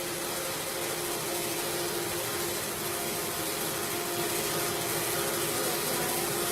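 CNC router for sign-making running: a steady mechanical whine on one constant pitch over a hiss, growing slightly louder about four seconds in.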